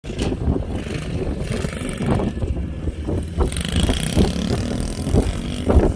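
Small dirt bikes running at a distance, heard under heavy wind buffeting on the microphone.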